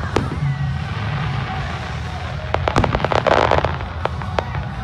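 Fireworks going off: a sharp bang just after the start, then a dense run of crackling pops and bangs about two and a half to three and a half seconds in, with a few more cracks near the end.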